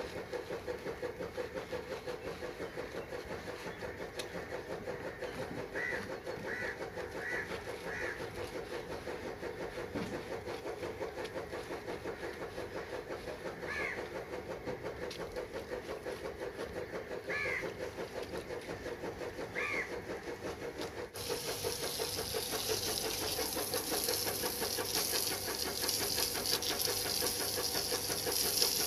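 A small engine running steadily with a fast, even pulse, with a few short bird chirps over it. About two-thirds of the way through, a steady hiss starts suddenly and continues.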